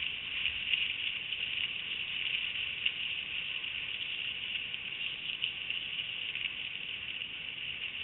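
Skis gliding over snow: a steady hiss with faint scattered ticks.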